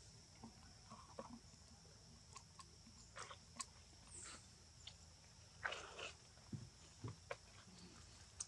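Near silence: faint forest ambience with a steady high hum and scattered soft clicks and rustles, and a short, somewhat louder rustle about six seconds in.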